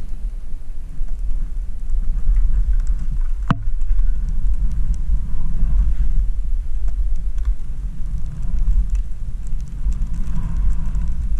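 Wind noise on a skier's camera microphone during a fast descent through deep powder: a steady low rumble, with one sharp click about three and a half seconds in.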